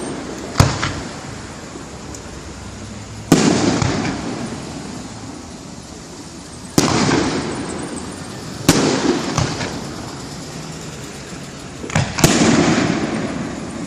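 Aerial fireworks shells bursting one after another: about six sharp bangs a few seconds apart, each followed by a long fading rumble.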